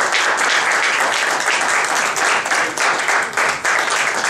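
Room of luncheon guests applauding steadily: many hands clapping at once, starting just after an award is announced.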